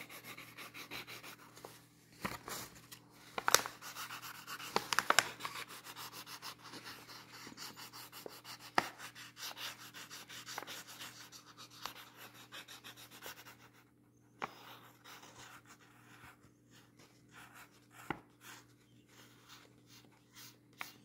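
Marker tip scratching over paper in quick, dense back-and-forth strokes as an area is coloured in, with a few louder ticks and scrapes around three to five seconds in and again near nine seconds, and a brief lull about fourteen seconds in.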